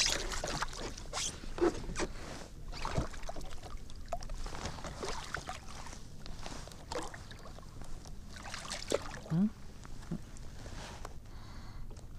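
A small striped bass splashing at the water's surface as it is pulled up beside a kayak, then the fish and line being handled during unhooking: a string of irregular knocks, scrapes and rustles, with a short rising squeak about nine seconds in.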